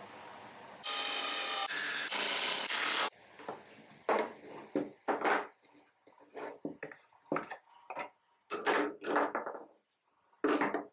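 Plywood bracket parts and plastic bar clamps being handled on a wooden workbench. A loud, steady rasping lasts about two seconds starting about a second in, followed by a run of short wooden knocks, taps and scrapes as the pieces are moved and set down.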